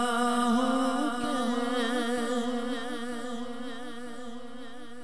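Wordless vocal humming held on a steady pitch under a naat, wavering slightly and slowly fading.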